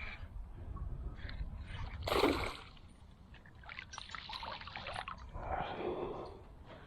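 A small largemouth bass being landed into a canoe: water splashing and dripping, with rustling handling noises. The loudest splash comes about two seconds in.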